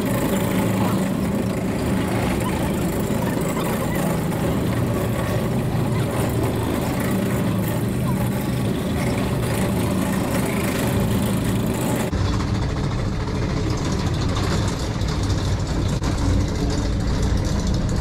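Slope monorail's drive unit running steadily under load as the car climbs a steep rail, heard sped up at double speed. About twelve seconds in the sound changes abruptly, losing its hiss and turning heavier and lower.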